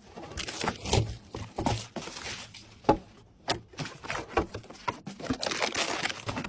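Hands handling computer parts during a PC build: irregular light clicks, taps and knocks with some scraping and rustling, growing busier near the end.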